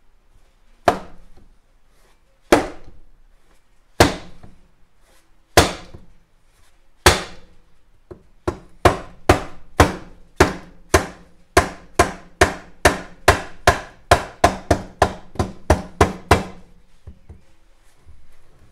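Rubber mallet striking the crankcase of a 1964 Norton Atlas engine to split the case halves apart: five separate blows about a second and a half apart, then a fast run of about two to three blows a second for some eight seconds, each with a short ringing tail, stopping a couple of seconds before the end.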